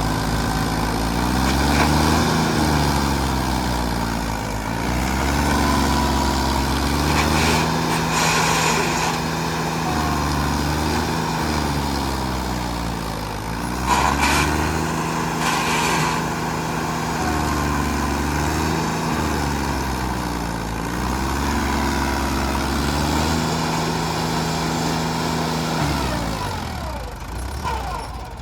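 Vehicle engine running, its speed dropping and rising again several times between steady stretches, with a few short hissing bursts.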